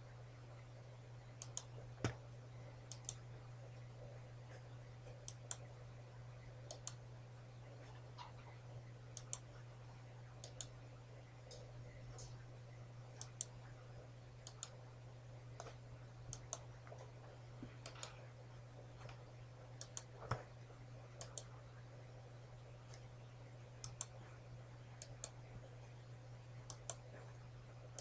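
Computer mouse button clicking at irregular intervals of a second or two, each click a quick double tick of press and release, with two louder taps among them. A steady low hum runs underneath.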